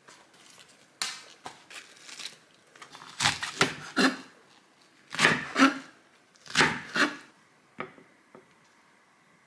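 Crisp leaves of a small napa cabbage crackle as they are snapped and peeled off. A kitchen knife then cuts through the cabbage onto a wooden cutting board in several loud, crunchy strokes.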